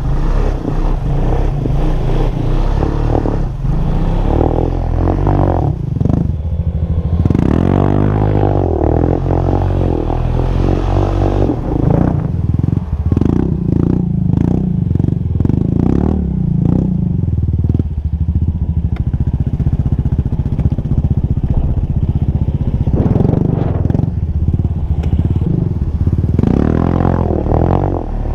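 ATV engine running hard as the machine is driven through shallow water, its revs rising and falling, about seven seconds in and again near the end, with water splashing and rattling against it.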